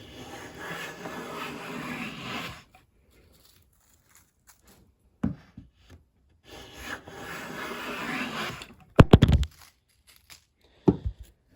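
No. 4 bench plane with a new Hock chip breaker taking two planing strokes along a cherry board, each a two-and-a-half-second rasping shaving cut. A few sharp knocks follow about nine seconds in, with one more near the end.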